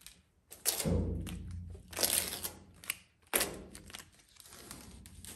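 Masking tape being peeled off the sheet-metal edge of a pickup cab's door jamb, with crinkling of the pulled tape, in three short bursts over the first few seconds. The tape comes off while the self-leveling seam sealer is still wet, so the sealer's edge lays down smooth.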